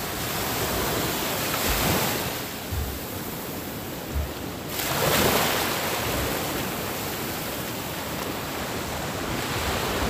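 Small sea waves washing up onto a sandy beach, with surges swelling louder about two seconds in and again around five seconds. Light wind buffets the microphone.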